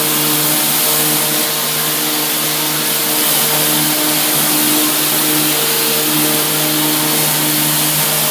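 Tile and grout cleaning machine running steadily: a loud rushing hiss of vacuum and spray over a steady engine hum, with higher tones that come and go.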